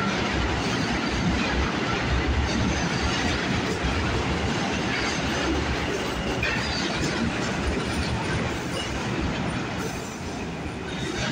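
New York City subway train pulling into an underground station, its wheels clattering over the rail joints as it rolls past and slows, with the sound echoing off the station walls.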